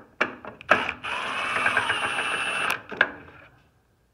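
Drill driving a 1/4-inch magnetic nut driver on an extension, backing a hex-head screw out of a furnace cover: a few clicks as the bit seats, a steady whir of the drill for about a second and a half, then a sharp click as it stops.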